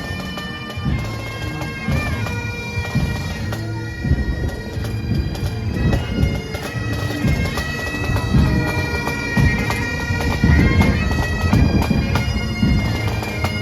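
Scottish pipe band playing: massed bagpipes carrying a tune over their steady drones, with drums beating underneath.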